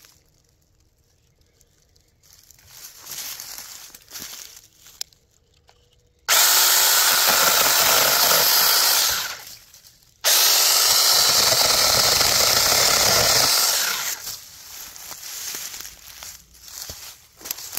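Tomyvic 6-inch battery-powered cordless mini chainsaw cutting into a fallen log in two loud, steady runs of about three to four seconds each, with a short stop between; each run starts suddenly and dies away when the trigger is released. Dry leaves rustle underfoot before and after.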